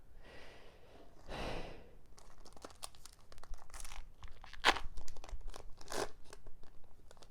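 A Pokémon booster pack's foil wrapper being torn and crinkled, followed by a run of quick crackles and clicks as the wrapper and cards are handled.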